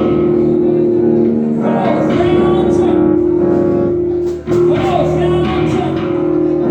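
Music with guitar and a singing voice holding long notes; the sound dips briefly about four and a half seconds in.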